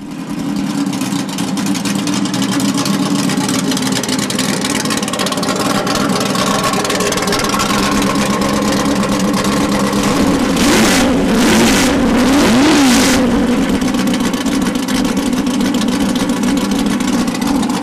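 Ford GT40's V8 engine running with its rear bodywork open and exhaust headers exposed, idling steadily, then blipped up and back down three times in quick succession about two thirds of the way through.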